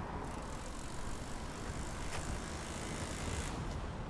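Excavator engine running steadily, with a single knock about two seconds in.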